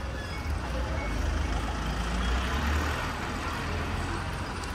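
Outdoor street ambience: a steady low rumble with an even hiss of background noise, with no distinct events.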